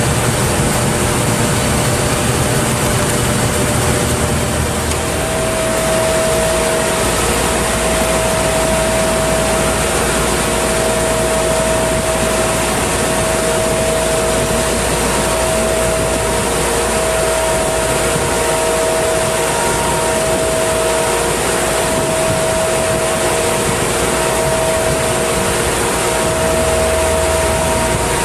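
Viking SR12LP wheel blast machine for propane cylinders running: a loud, steady machine drone with a dense hiss and a steady whining hum that grows stronger about six seconds in.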